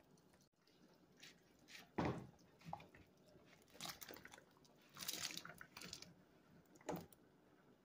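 Diced potatoes tipped from a plastic colander into a pot of broth: a sharp thump about two seconds in, then scattered knocks and a cluster of splashes around five seconds in as the cubes drop into the liquid.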